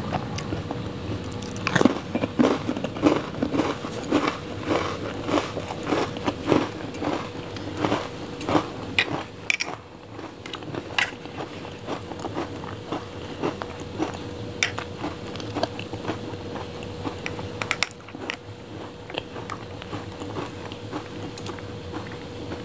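Close-miked biting and crunchy chewing of an Oreo ice cream dessert with cookie pieces: dense crunching for roughly the first nine seconds, then slower, sparser chewing and mouth sounds. A faint steady hum runs underneath.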